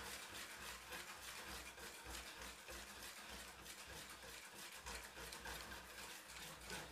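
Faint stirring of sugar into water to dissolve it, with light repeated ticks.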